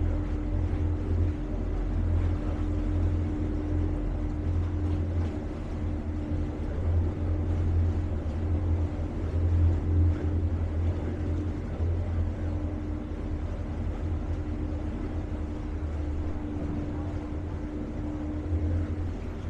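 Tour boat's motor running steadily on the river: a constant low drone with a steady hum above it.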